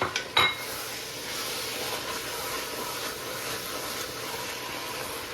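A pot of chili base sizzling with a steady hiss as fresh tomato goes in. There are a couple of sharp knocks near the start, the second one ringing briefly.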